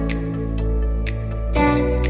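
Soft instrumental background music with sustained notes, a new chord coming in about a second and a half in.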